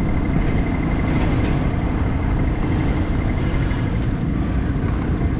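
Road traffic at a city intersection: a steady low rumble of car and bus engines and tyres, heard through a bike-mounted action camera with some wind on the microphone. A faint, rapidly pulsing high tone fades out about two seconds in.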